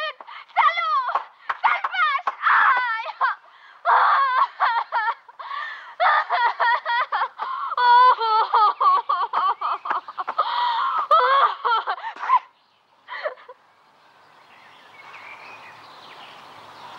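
A girl laughing hard in rapid, high-pitched bursts while tumbling in the grass. The laughter breaks off about twelve seconds in, leaving a faint outdoor hiss.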